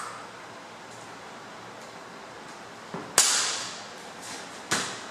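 Two sharp cracks or smacks about a second and a half apart over a steady hiss. The first, just past halfway, is the loudest and rings on for most of a second.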